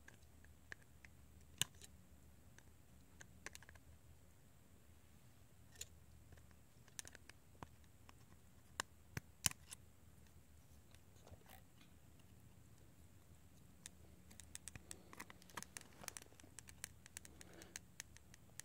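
Very faint, scattered clicks and light scrapes of a plastic prying tool working the cable connectors inside an opened iPhone 6, with a quicker run of small clicks near the end.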